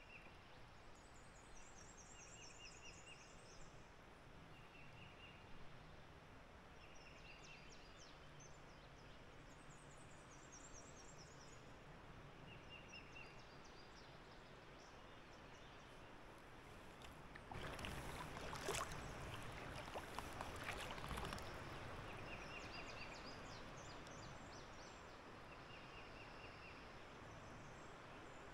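Songbirds singing along the riverbank, short repeated high chirping phrases every second or two. About two-thirds of the way through comes a few seconds of louder water splashing and dripping with light knocks around the kayak.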